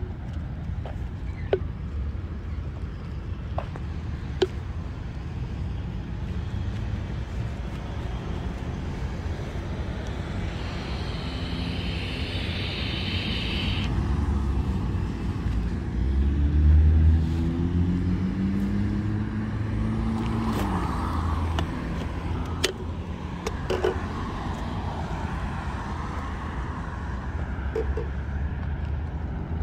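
Road traffic: a steady rumble of passing cars, with one vehicle loudest about 17 seconds in, its engine note climbing in pitch as it accelerates past before falling away.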